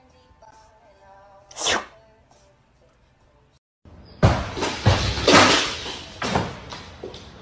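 Soft music, then one short sharp sneeze-like burst, which fits the cat sneezing. After a pause comes a loud stretch of thumps, bangs and scuffling as a dog leaps onto furniture.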